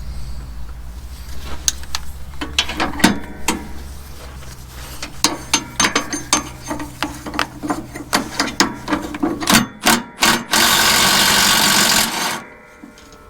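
Hand ratchet wrench clicking in quick strokes as a mounting bolt is worked loose, over a steady low hum. Near the end comes a loud, steady hiss of about a second and a half.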